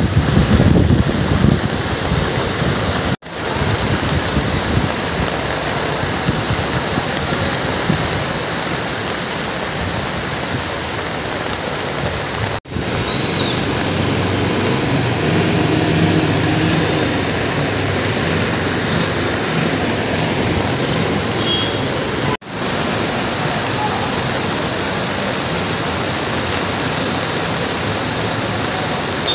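Steady rushing of floodwater and heavy rain, a continuous hiss that cuts out for an instant three times.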